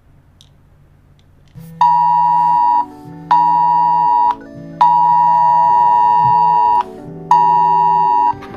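Electronic alert tone like a keyboard or synthesizer: a loud, steady chord with a strong high note, sounded in blasts of about a second with one longer two-second blast. It starts about a second and a half in, after a faint low hum.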